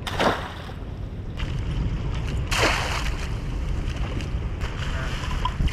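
Two splashes of water, one just after the start and another about two and a half seconds later, as a lobster hoop net goes over the side of a kayak. A steady low rumble of wind on the microphone runs under them.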